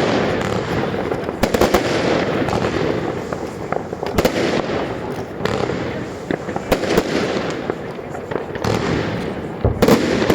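New Year's Eve fireworks and firecrackers going off all around: a continuous crackle and rumble of distant explosions, with sharp nearby bangs standing out several times, the loudest about a second and a half in, about four seconds in and near the end.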